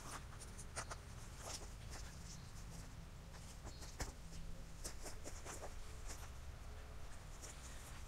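Faint, irregular scratching and rustling of landscape fabric being spread and walked on over gravel, with short crunching footsteps, over a steady low hum.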